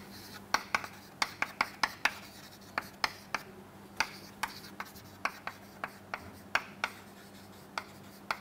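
Chalk writing on a blackboard: an irregular run of sharp taps and short scratches, about two or three a second, as letters are chalked one after another.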